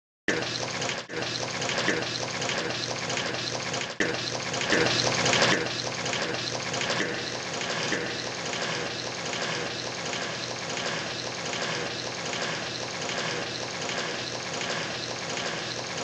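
Water rushing steadily, with a regular pulsing about twice a second and a louder surge about four to five seconds in.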